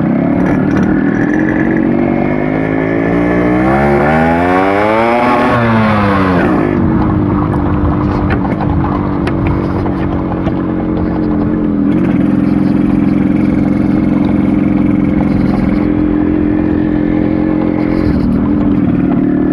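Yamaha RX100's two-stroke single-cylinder engine revving up once and dropping back, then running steadily, with a couple of brief dips in pitch.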